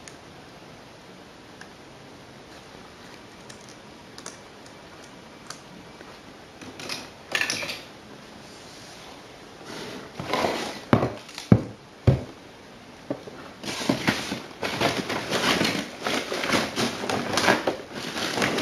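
Quiet room hiss for the first several seconds, then rustling, clattering and a few sharp knocks from junk being handled and sorted. It gets busier over the last five seconds.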